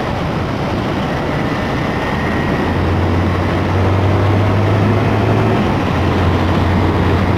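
Honda 160 cc single-cylinder motorcycle engine running under acceleration on a wet road, over steady wind and road noise. A steady low engine note comes in about a third of the way through and drops out briefly about three-quarters of the way in.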